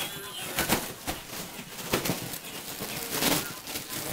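A mylar foil balloon crinkling and crackling in an irregular string of scrunches and taps as a Shetland sheepdog pounces on it and bites at it.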